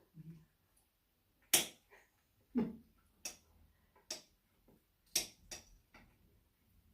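About seven sharp clicks and taps at irregular intervals, the loudest about a second and a half in.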